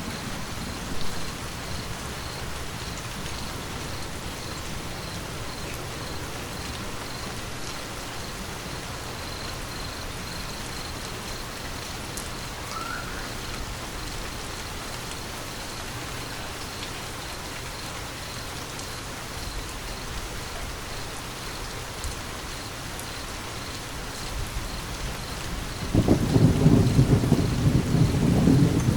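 Steady rain falling. Near the end a loud, deep rumble of thunder sets in.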